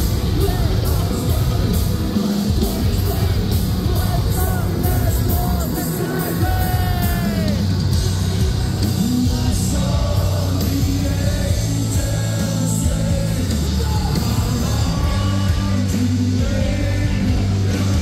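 Live metalcore band playing loud: electric guitars, bass and drums with a singer's vocals over them.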